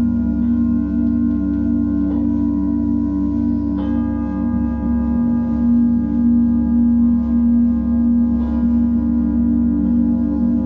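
Several singing bowls ringing together as a sustained chord of steady, slowly beating tones over a low hum. A bowl is struck afresh about two, four and eight seconds in.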